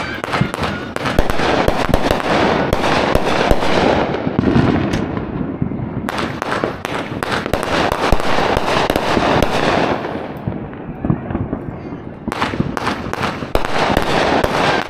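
Consumer aerial fireworks launching and bursting overhead, a dense run of sharp crackling pops and bangs. They come in three thick clusters, with short lulls about four and ten seconds in.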